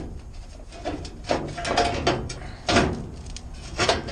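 A loose sheet-metal rocker panel being handled against the truck's body: about four sharp metallic clunks with scraping between them, the loudest near the middle.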